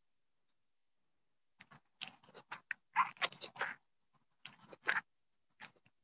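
Irregular scratchy clicks and rustles close to the microphone, coming in short clusters from about one and a half seconds in.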